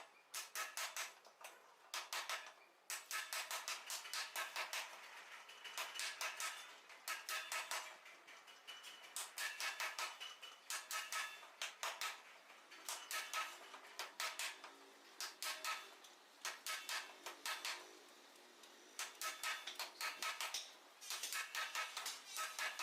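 Hammer striking steel in rapid runs of several blows a second, with short pauses between runs, each blow ringing metallically.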